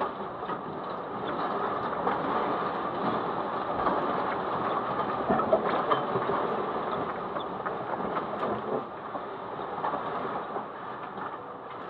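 Strong earthquake shaking rattling a stopped car, heard from inside the cabin: a continuous dense clatter and rumble full of small knocks, easing a little in the last few seconds.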